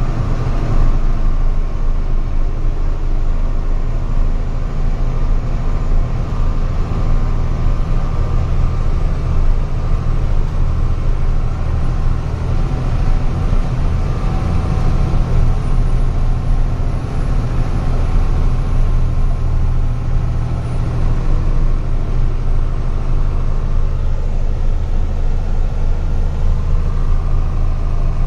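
Truck engine running steadily under load on a steep uphill climb, a continuous low drone with a deep, even hum.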